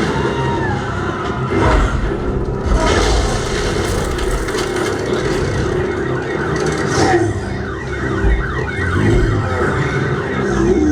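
Soundtrack playing through a home audio system with an SVS SB-2000 Pro subwoofer: heavy, deep bass with repeated low thumps under wailing, siren-like sliding tones.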